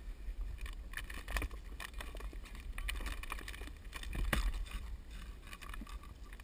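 Paddle strokes of a homemade pop-bottle kayak in river water: irregular splashes, knocks and clicks over a steady low rumble.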